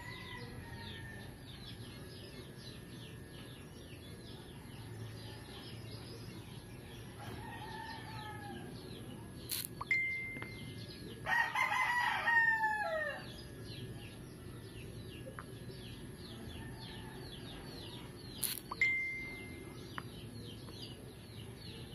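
A rooster crowing once, loudly, about eleven seconds in, the call ending in a falling glide, over constant faint chirping. Two sharp clicks, each followed by a brief high tone, come just before and well after the crow.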